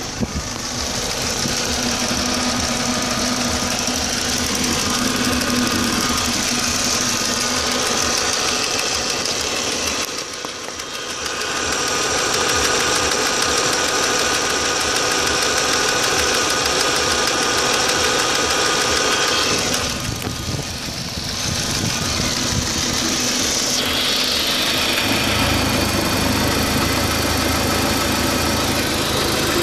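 Audi A4 B6 1.8-litre turbocharged four-cylinder engine idling roughly after a new water pump and timing belt, a fault whose cause the owner has not found. The sound is steady apart from two brief dips, about ten and twenty seconds in.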